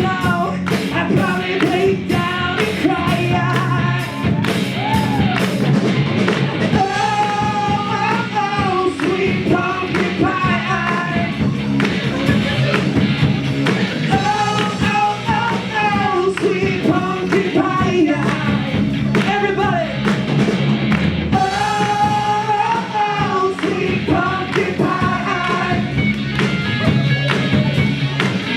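A band playing a song with a sung lead vocal over a steady bass and guitar accompaniment.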